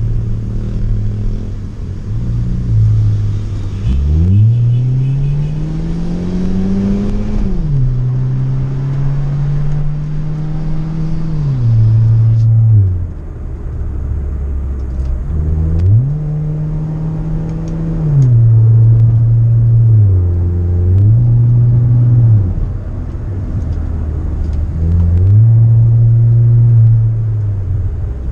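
Hyundai HB20's 1.6 four-cylinder engine, breathing through a new sport-muffler exhaust, revving hard on a run. The note climbs steeply about four seconds in and drops suddenly near eight seconds, as at an upshift. It then holds, falls away, and rises and falls several more times as the throttle is worked.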